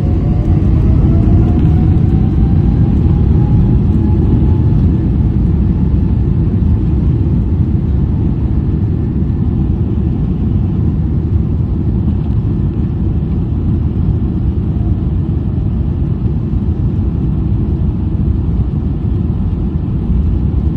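Boeing 777-300ER's GE90 engines spooling up for takeoff, heard from inside the passenger cabin: a loud, steady rumble, with a whine that rises in pitch over the first few seconds as the jet accelerates down the runway.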